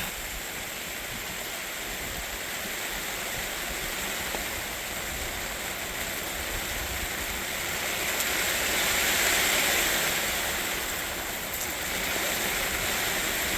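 Steady rain falling, growing heavier for a few seconds past the middle and then easing back.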